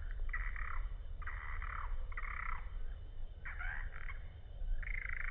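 Frogs croaking: about five short calls, roughly one a second, over a steady low wind rumble on the microphone.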